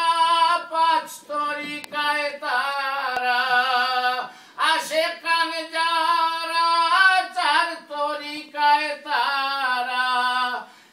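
A solo voice singing an unaccompanied devotional song in praise of Fultoli, holding long notes that waver and slide between pitches, with a brief pause for breath about four seconds in.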